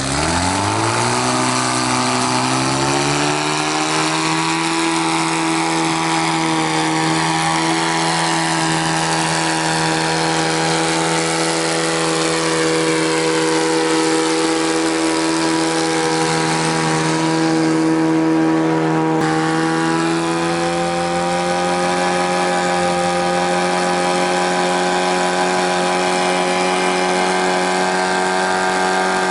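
Timberjack 450 skidder's Detroit Diesel 4-53 two-stroke diesel engine revving up over the first few seconds, then running steadily at high revs while the skidder drives down the road.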